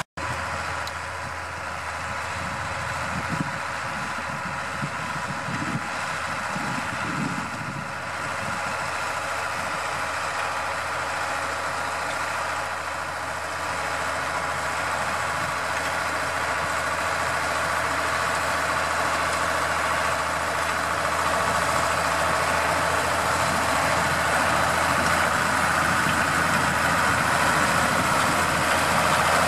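New Holland TS115 tractor engine running steadily under load while driving a power harrow through the soil, growing gradually louder as it approaches.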